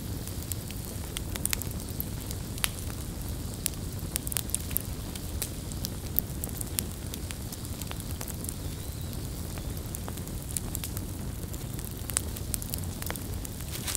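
Wood fire of burning logs: a steady low rush of flames with frequent sharp crackles and pops from the wood, scattered irregularly.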